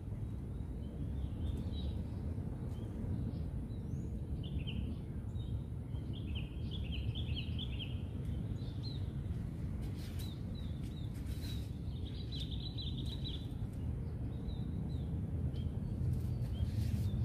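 Small birds chirping and twittering, with two runs of rapid high chirps about five seconds in and again around twelve seconds, over a steady low outdoor rumble.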